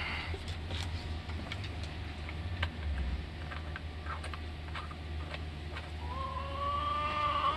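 Small scattered plastic clicks as the filler cap is screwed back onto a chainsaw's bar-oil tank, over a steady low hum. About six seconds in, a drawn-out pitched tone rises slightly and holds for a second and a half.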